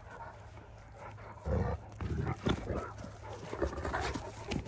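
Six-month-old Great Dane puppies play-wrestling: dog vocal sounds and scuffling in irregular bursts, starting about a second and a half in.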